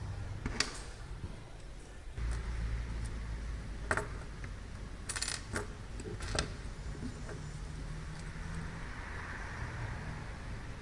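Small tools and a plastic terminal block handled on a tabletop: a few sharp metallic clicks and taps, bunched in the middle, over a steady low hum.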